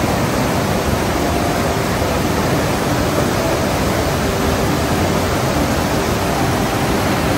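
Large waterfall rushing: a steady, even noise with no breaks.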